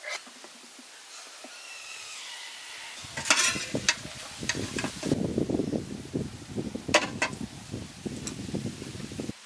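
A metal slotted spoon clinking and scraping against a metal steamer tray while steamed squid is scooped out. The clatter starts about three seconds in, with a few sharper clinks among it, and stops suddenly near the end.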